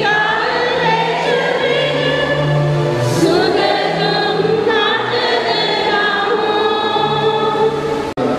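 A church congregation singing a hymn together, with long held notes. The singing cuts off abruptly just before the end.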